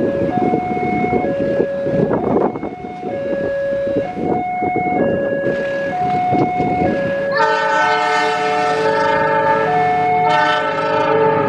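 Railway level-crossing warning alarm sounding a steady two-tone alternating signal, while an approaching diesel passenger train rumbles on the track. About seven seconds in, the locomotive's multi-chime air horn sounds a long chord blast, then a second blast after a brief break near the end.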